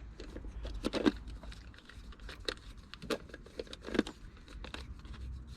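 Irregular small clicks, taps and scrapes of a Phillips screwdriver working a screw down into a distributor cap, with the louder knocks about a second in and about four seconds in.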